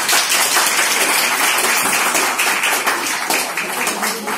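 A roomful of people applauding: dense clapping that thins out near the end.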